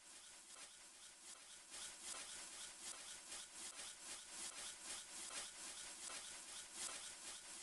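Cloth wiping a glass pane in quick back-and-forth strokes: a faint, steady rubbing at about three to four strokes a second.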